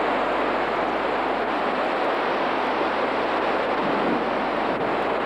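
Stadium crowd noise: a steady din of many voices talking and calling at once.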